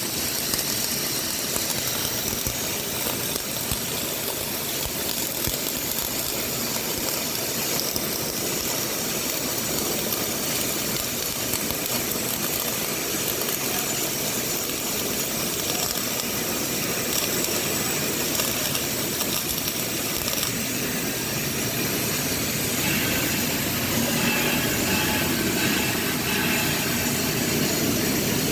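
CO2 (MIG) welding arc crackling and hissing steadily as a weld bead is run, its tone shifting a little about 23 seconds in.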